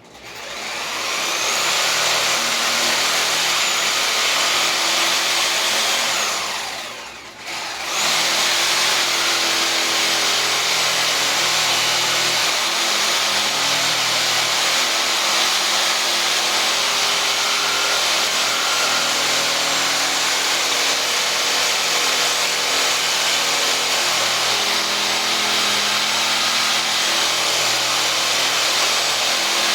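Reciprocating saw (Sawzall) running and cutting into wood, spinning up at the start. About seven seconds in it winds down briefly with a falling pitch, then starts again and runs steadily.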